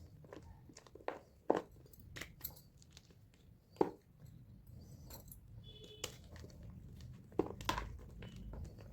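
Pressed gym chalk blocks crumbling as they are crushed by hand, giving scattered dry crunches and crackles, the sharpest about a second and a half in and near four seconds in, with a small cluster near the end.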